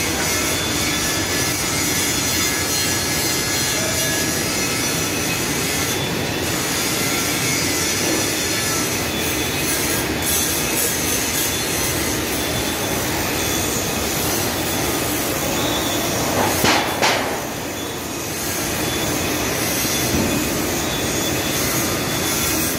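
Steady, loud din of workshop machinery running, with high-pitched whining tones over a noisy rumble. A few sharp clattering knocks come about two-thirds of the way in, and the din dips briefly after them.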